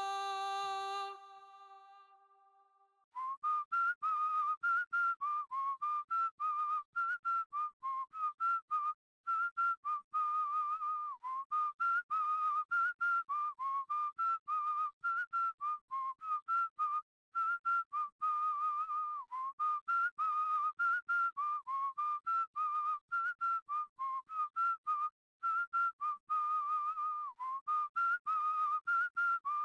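A held musical note fades away over the first two seconds. About three seconds in, a whistled tune begins: a lively melody of short, quick notes that goes on without a break.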